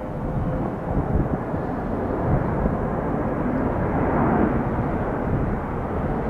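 Airbus A330-300 airliner's jet engines rumbling as it arrives to land, the roar building over the first few seconds and peaking about two-thirds of the way through.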